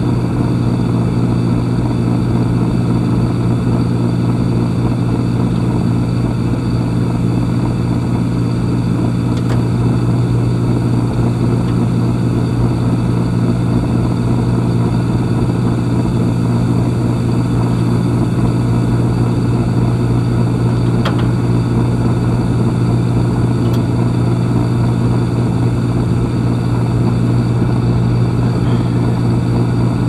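Air-conditioning equipment running: a loud, steady motor hum with a strong low tone and overtones.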